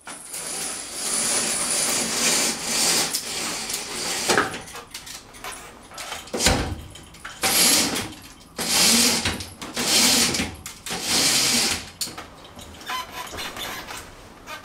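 Curtains being pulled open along their rail in several separate surges of sliding, rustling fabric. Near the end they give way to softer scattered rustles and clicks.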